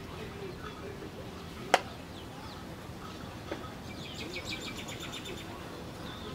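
Outdoor ambience with small birds chirping: a quick run of high chirps about four seconds in. A single sharp click comes about two seconds in.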